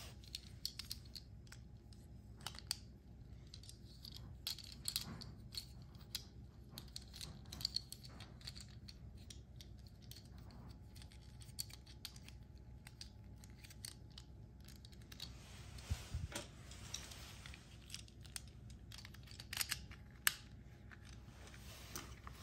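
Irregular small clicks and taps of a toy ambulance's plastic and metal parts being handled by hand, its base plate and body pieces knocking and snapping together.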